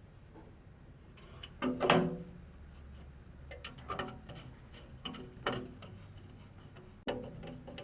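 Soft background music: spaced pitched notes about every second and a half over light ticking.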